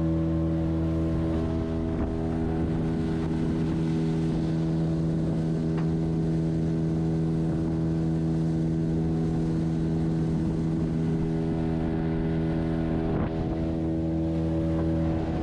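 Small boat's engine running steadily at one speed, a constant drone.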